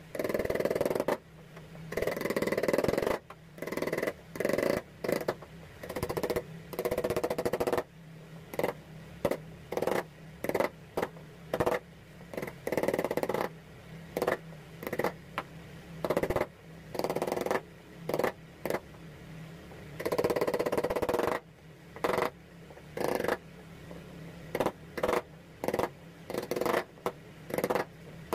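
Steel wood chisel cutting into a hardwood handle held in a vise: a long series of sharp knocks as the chisel is driven into the wood, with longer scraping stretches as it pares out the chips.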